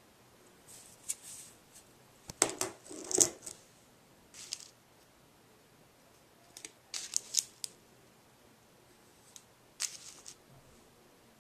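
Small items being handled in and against a metal Altoids tin: scattered clicks, light taps and rattles in a few short clusters, the loudest about two and a half to three seconds in.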